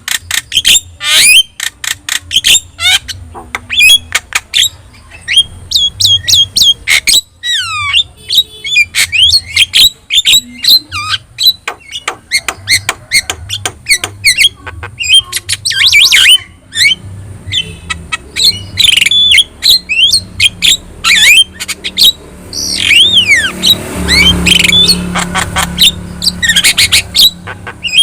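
Javan myna singing without pause: a rapid string of sharp squawks, clicks and short whistled notes that glide up and down, turning into a denser, harsher chatter near the end.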